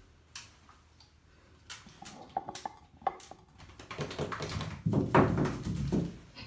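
Small wet dog moving about in a bathtub: claws clicking and tapping on the tub floor, then a louder flurry of movement for about two seconds near the end.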